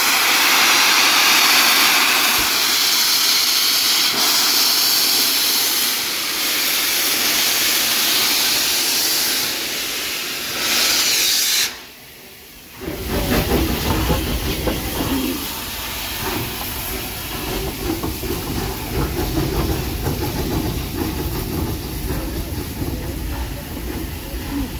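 Steam locomotive 34067, an air-smoothed Bulleid Battle of Britain class Pacific, hissing loudly as steam blows from its open cylinder drain cocks. After a sudden break about twelve seconds in, a lower rumble follows as the locomotive's tender and coaches roll past.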